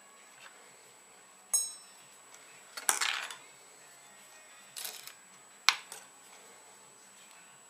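Four separate sharp clicks and clatters of small hard objects. The first is a metallic clink that rings briefly, and the loudest, a little later, trails off for about half a second.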